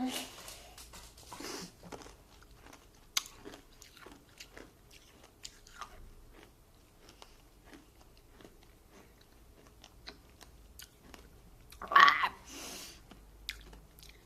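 Close-up chewing and crunching of a mouthful of Nerds, tiny hard sugar candies, with irregular small crackles throughout and one short louder mouth sound about twelve seconds in.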